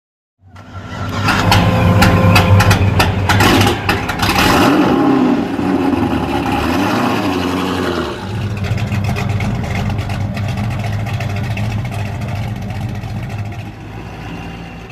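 Chevy Captiva's engine starting and running, with sharp clicks and rattles over the first few seconds, then settling to a steady idle.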